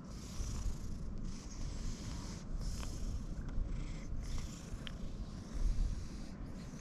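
A tabby-and-white cat purring and snorting heavily through its nose while being stroked, with a breath about once a second.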